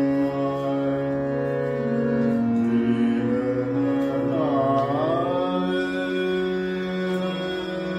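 Harmonium playing sustained chords that change a few times, with a man singing over it; about halfway through the sung note bends and wavers.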